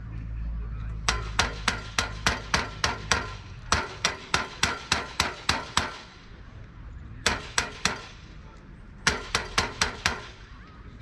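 Sharp rhythmic claps, about three or four a second, in four runs: two long runs of about eight claps each, then a short run of three and one of five.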